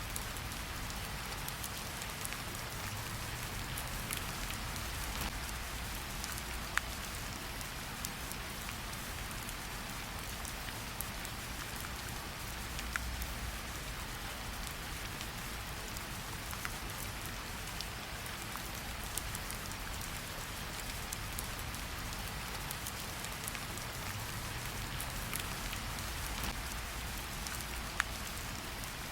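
Steady rain falling, an even hiss with scattered sharper drop ticks now and then.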